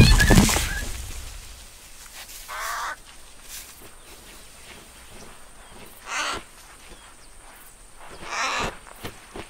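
A loud crashing thud right at the start that fades out over about a second. Then three short bird calls, a few seconds apart, from a cartoon bird.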